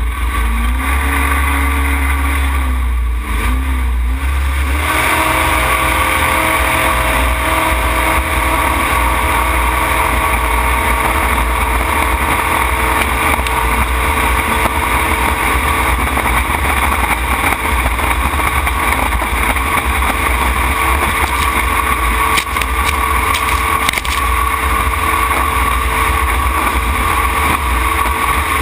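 Racing jet boat engine heard from the open cockpit. The engine note dips and rises in the first few seconds, then the engine runs steady at high revs under full power for the rest.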